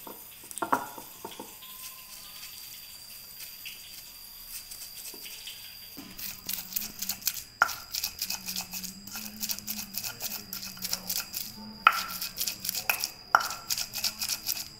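Stone pestle (ulekan) grinding chilies, shallots and garlic into balado spice paste in a stone mortar (cobek). A few knocks at first, then from about halfway a quick run of scraping, crushing strokes, about four a second, with a few sharper knocks of stone on stone.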